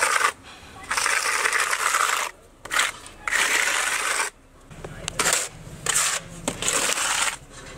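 Texture putty scraped across a rough wall with a hand-held putty spreader: several gritty, rasping strokes about a second long, with short pauses between them.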